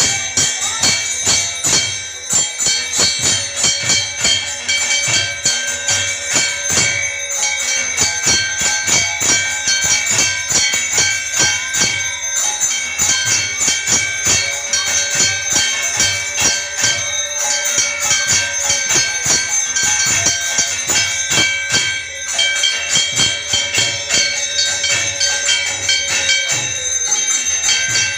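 Temple bells ringing continuously with clanging percussion strikes in a fast, steady rhythm during Hindu arati worship. A long held note sounds three times over it, each for about four seconds.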